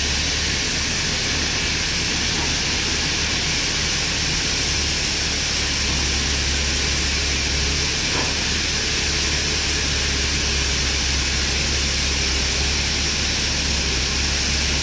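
Tata Hitachi hydraulic excavator and heavy plant machinery running steadily, a continuous loud hiss over a low hum with no change in level.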